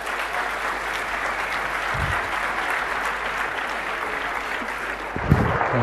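Audience applauding steadily, with a short low bump about two seconds in and another near the end.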